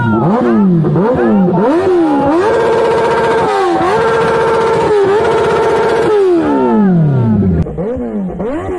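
Kawasaki ZX-10R's inline-four engine revved in quick blips, the pitch jumping up and falling back several times. It is then held at high revs with short dips for a few seconds, slides back down, and is blipped again more quietly near the end.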